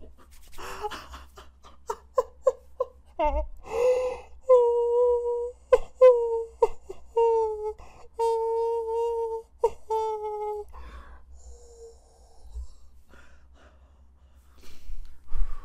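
A young man's wordless moaning in dismay. Short breathy gasps come first, then from about four seconds in a long, steady, high moan held in several stretches, made through hands cupped over his face, and then fading into softer breaths.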